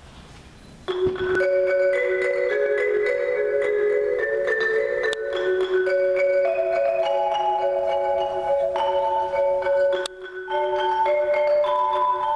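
Two marimbas played with mallets by four players, coming in together about a second in with fast, repeating, interlocking note patterns. The playing breaks off for a moment near the end and then picks up again.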